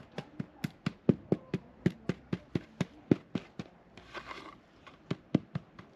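Rapid, regular knocking, about four sharp strikes a second, with a short scraping hiss about four seconds in.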